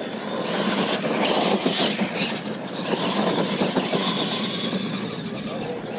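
Two radio-controlled monster trucks racing over a dirt track: a rough, steady running noise of their motors and big tyres churning the dirt, with a high motor whine rising out of it twice.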